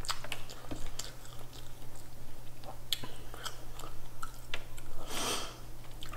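Mouth chewing seafood, with small wet clicks and ticks, as fingers pick through shrimp and mussels in broth. A short hissing rush of noise comes about five seconds in.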